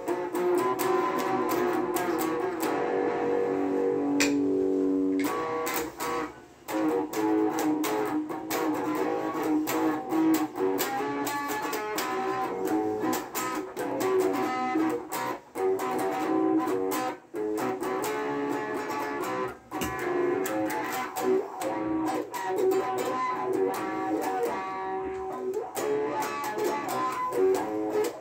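Stratocaster-style electric guitar played with quick picked notes and strummed chords, with a note held for about a second around four seconds in.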